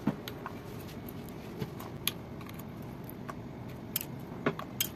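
Light, scattered clicks and taps on a plastic ice cube tray, about ten of them at irregular moments, as pomegranate seeds are dropped into its cells.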